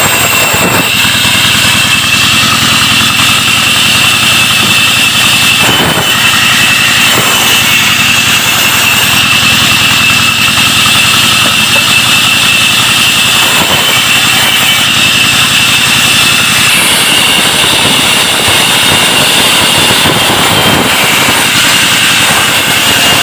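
Wood-cutting saw machine (ara) driven by a Peter-type diesel engine, running steadily: a steady high whine sits over the engine's low, even running, with a few brief knocks.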